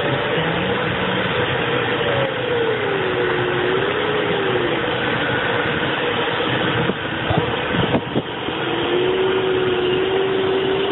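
Glider cockpit in flight: steady rushing airflow over the canopy, with the audio variometer's tone gliding up and down in pitch, dropping out in the middle and coming back near the end. A couple of knocks about eight seconds in.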